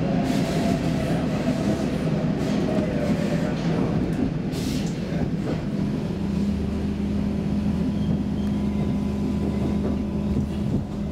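Stockholm Metro C6 subway train heard from inside the car, running through a tunnel with a continuous rumble of wheels on rails. About halfway through, a steady low hum sets in as the train comes into a station.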